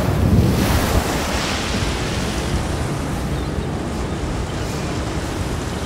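Open-sea waves sloshing and splashing, a loud wash in the first second, then a steady rushing surf.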